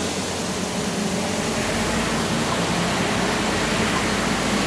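Steady rushing noise, with a low rumble of wind on the microphone growing from about a second and a half in. Under it runs the faint steady hum of the Hubsan H501M quadcopter's propellers as it hovers overhead.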